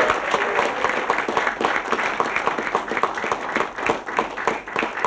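Applause: many hands clapping, a fast, steady patter of sharp claps.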